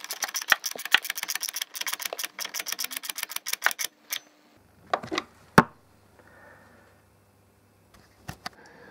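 Small hand ratchet with a T25 Torx bit clicking rapidly as the radiator cowling screws are nipped up, for about four seconds. After that, a few separate clicks and one sharp knock a little past halfway.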